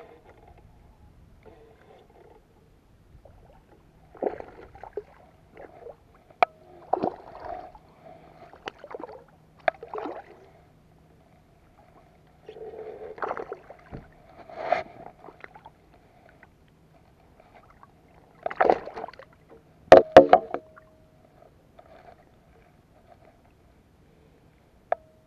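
A spinning reel being wound in while a hooked bass splashes at the water's surface, with sharp clicks and knocks in among the splashing. The loudest cluster of splashes and knocks comes about twenty seconds in, near when the fish is lifted.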